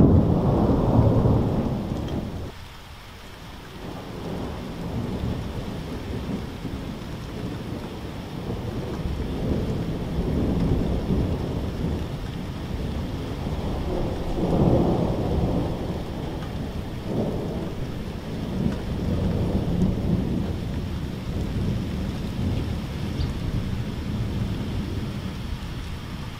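Thunder rumbling in low rolls: a loud roll that fades out in the first two seconds, then further rumbles swelling and dying away several times, over a steady hiss of rain.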